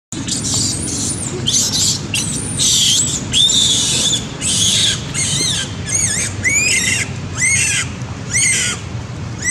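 Baby macaque screaming in a string of loud, high-pitched cries. They are harsh at first, then become shorter squeals that rise and fall in pitch.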